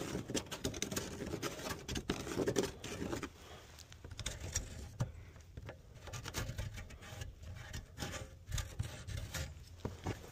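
Pencil scratching on OSB sheathing as it traces round the circular holes of a metal mounting template, with irregular short scrapes and rubs.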